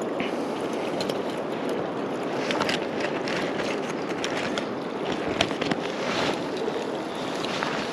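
Steady rush of flowing river water, with a few short sharp ticks scattered through it.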